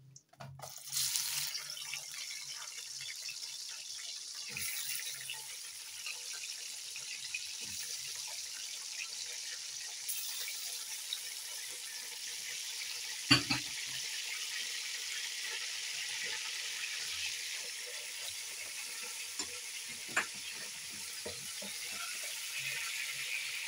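Mutton pieces sizzling in hot oil in a pressure cooker. The steady sizzle starts about a second in as the meat goes into the oil and is turned with a wooden spatula, with one sharp knock about halfway through.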